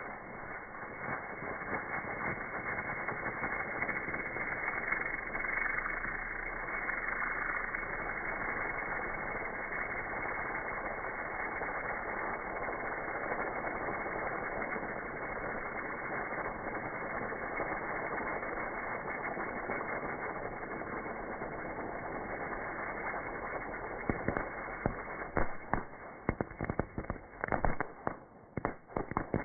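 Small ground firework burning on asphalt: a steady rushing hiss as it spews sparks and smoke, then near the end a run of sharp, irregular pops and cracks.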